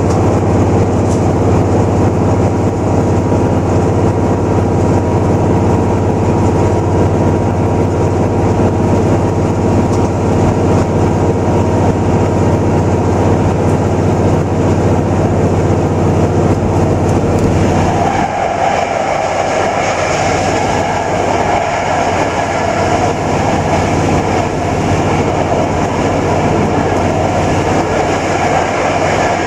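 KTR700 diesel railcar heard from inside the cabin, its engine running steadily under way with the rumble of wheels on rail. About two-thirds of the way through, the steady engine note drops back and a higher rushing roar of the running gear takes over.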